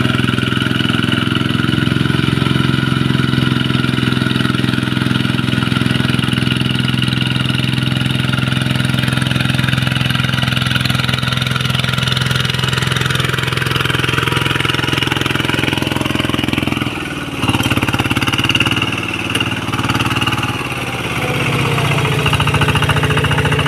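Single-cylinder diesel engine of a Kubota two-wheel hand tractor running steadily under load as it plows a flooded rice paddy. The sound briefly drops about 17 seconds in and shifts again near the end.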